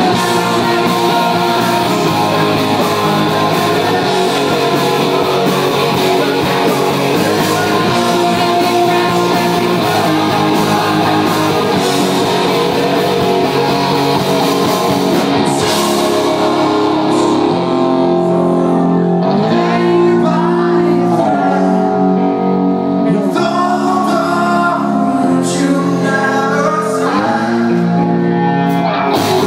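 Live rock band playing: electric guitars, drums and a lead vocal. About halfway through the drums and cymbals drop away, leaving sustained guitar chords that change every couple of seconds, and cymbals crash back in near the end.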